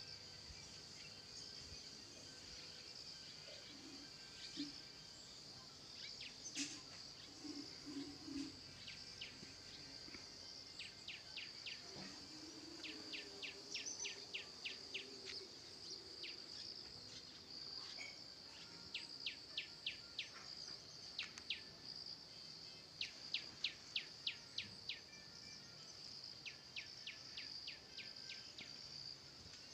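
Faint rural ambience: a steady high-pitched insect drone, with repeated runs of quick, sharp chirping notes throughout.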